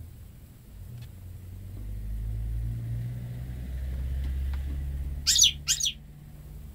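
Goldfinch × canary hybrid giving two short, sharp calls about half a second apart, a little past five seconds in, over a low rumble.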